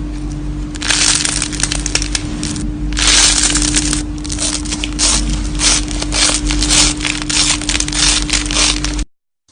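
Slime being squeezed and pressed by hand, giving dense crackling and popping in bursts over a steady low hum; it cuts off abruptly near the end.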